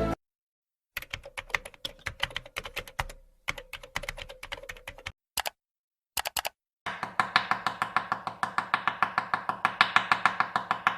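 Computer keyboard typing sound effect: irregular keystrokes with short pauses, then from about seven seconds in a fast, even run of keystrokes, about four a second.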